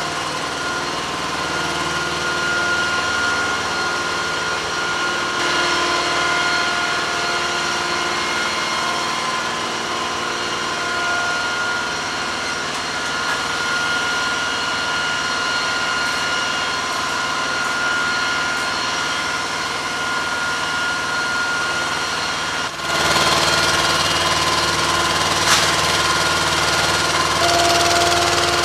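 MHU-83 munitions lift truck engine running steadily, with several steady high-pitched whines over it. It gets louder about two-thirds of the way through, and there is a single sharp click near the end.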